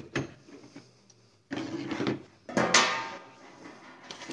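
Handling noise as a Mamiya RZ67 medium-format camera and foil-wrapped 120 film rolls are moved about on a tabletop: a knock right at the start, then two bursts of clatter and rustle, the louder one about two and a half seconds in.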